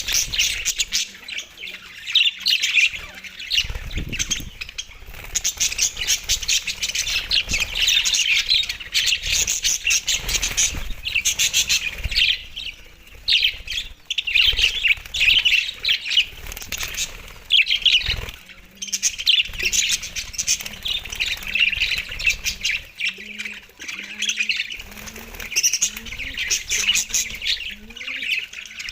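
Budgerigars chirping and chattering without a break, a dense run of quick high chirps and squawks, with a few dull low thumps now and then.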